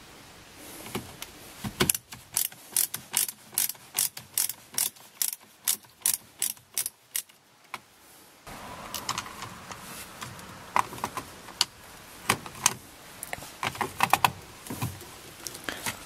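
Screwdriver ratchet clicking in quick, even runs of about three or four clicks a second as it backs out the Phillips screws holding the SRS clock spring on the steering column. About eight seconds in, this gives way to scattered clicks and knocks of plastic being handled as the part comes loose.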